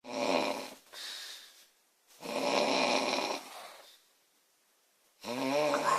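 A woman snoring loudly: three snores about two and a half seconds apart. The first two are raspy and each trails into a quieter breath out; the third has a clear droning pitch.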